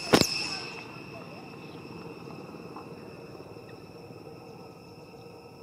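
Steady shrill drone of insects, two high tones held throughout and slowly fading a little. A single sharp click just after the start is the loudest sound.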